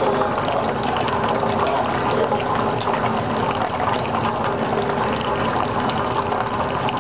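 Fetco commercial coffee brewer in its brew cycle: a steady rush of hot water running through the machine and trickling out of the brew basket, with a faint steady hum underneath.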